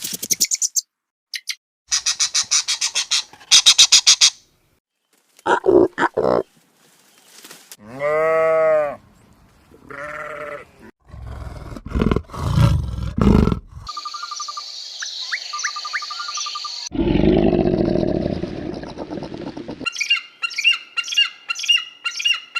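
A string of different animal calls, cut one after another, each lasting from under a second to a few seconds: some rapid and pulsing, some drawn-out and pitched, some low and rough, with high repeated chirps near the end.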